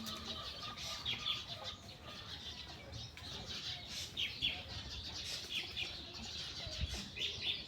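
A flock of small birds chirping together: a busy, continuous chatter of many short, high calls.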